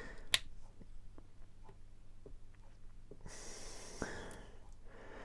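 Small plastic clicks and taps of Playmobil figure parts being handled and pressed together, with one sharp click just after the start. A breath out is heard about three seconds in.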